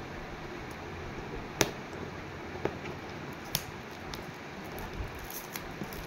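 Shiny plastic gift-wrap sheet rustling and crinkling as it is handled and folded around a box, with a few sharp crackles, the loudest about a second and a half in.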